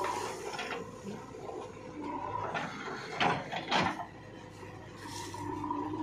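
JCB 3DX backhoe loader working, its diesel engine and hydraulics running with a whine that fades and returns. Two loud scraping crunches come a little past three seconds and just before four seconds in, as the steel bucket bites into the soil.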